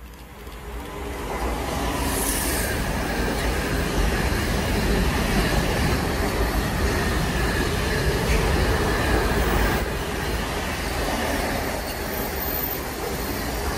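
Container freight train passing at speed. The noise builds over the first two seconds as the locomotive arrives, then holds as a steady rush of wagons running by, with a brief high hiss about two seconds in.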